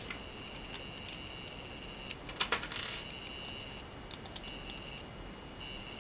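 Plastic Lego pieces being handled and snapped together, with a few sharp clicks, the loudest cluster about two and a half seconds in. A steady high whine runs underneath and drops out briefly twice.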